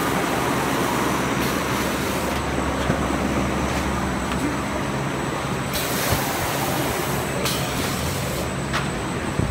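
Honeycomb paperboard lamination line running: a steady mechanical drone of motors, rollers and belt drives over a low hum. Brighter hissing stretches come in about six seconds in and again about a second later.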